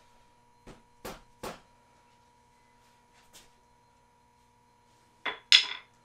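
Soft-faced mallet tapping the motorcycle's front axle and fork into place: three dull knocks about a second in, a faint one later, then two louder, sharper metallic knocks with a brief ring near the end.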